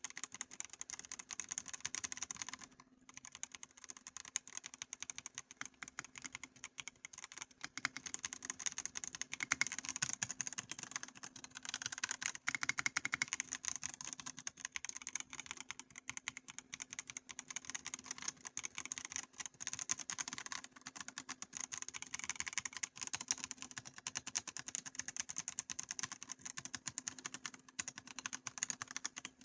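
Fast, continuous typing on a Redragon K649 Elf Pro gasket-mounted mechanical keyboard with its stock low-profile linear switches (similar to Outemu low-profile reds), a dense stream of key clicks and clacks. It pauses briefly about three seconds in.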